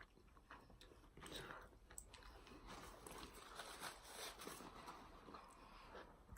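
Faint chewing and biting of a person eating, with small irregular wet clicks and crunches.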